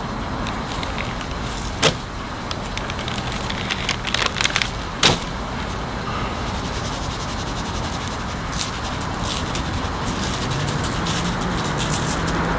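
A plastic shaker bottle of dry rub shaken in quick rattling strokes over the meat from about two-thirds of the way in. Earlier there are a few sharp knocks of bottles being handled on the table, over a steady background hiss.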